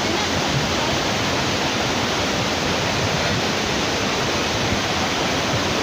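A tall waterfall pouring: a steady, even rush of falling water with no breaks.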